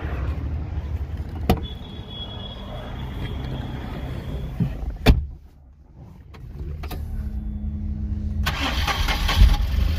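Tata Nano CNG's two-cylinder engine running, then cutting out with a click about five seconds in. After a short pause it is cranked and catches again near the end. It runs with the connector of its faulty O2 sensor unplugged.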